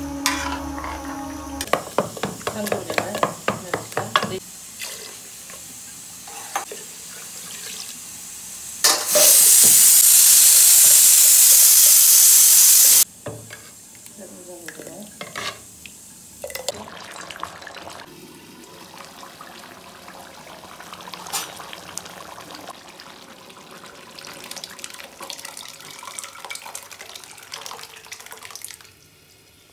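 A metal spatula scrapes and clacks against a steel kadai as pork curry is stirred. Then a loud, steady rushing hiss lasts about four seconds and stops abruptly. After it come lighter ladle clinks in a pot of boiling dry jute-leaf liquid.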